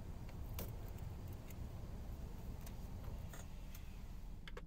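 Faint, scattered clicks and taps of hands handling rubber hoses and plastic fittings in a car's engine bay, over a low steady rumble.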